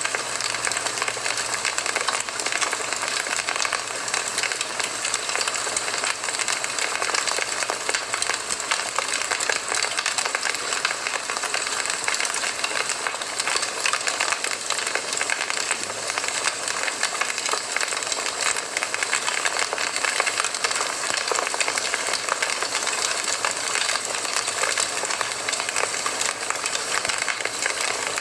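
Campfire burning: a steady hiss with many small crackles and pops.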